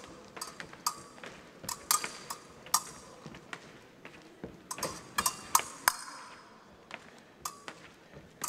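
Épée blades clinking and scraping against each other in a fencing exchange: an irregular string of sharp metallic ticks, each with a short ring, mixed with the taps of the fencers' footwork on the piste.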